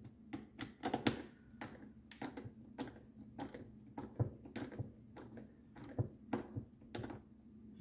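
Screws being driven by hand with a screwdriver into a steering wheel's plastic control housing: a run of light, irregular clicks and ticks, a few each second.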